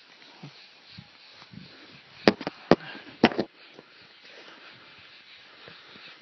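Three sharp AR-15 rifle shots about half a second apart, with fainter cracks close after the first and the last.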